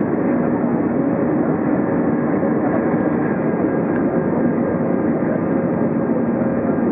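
Steady cabin noise inside an Airbus A320 in flight: the engines' drone and the rush of air over the fuselage, with a faint steady hum running through it.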